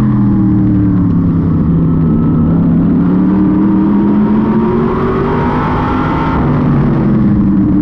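Open-wheel modified race car's V8 engine running hard under racing, heard from inside the cockpit. The engine note falls in the first couple of seconds, climbs again midway and dips once more near the end as the driver lifts and gets back on the throttle around the track.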